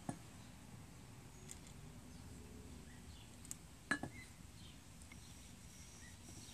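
A few light metallic clicks and knocks of an aluminium piston and its broken connecting rod stub being handled against the cylinder of a Briggs & Stratton opposed-twin engine. The sharpest click is about four seconds in. Faint bird chirps sound in the background.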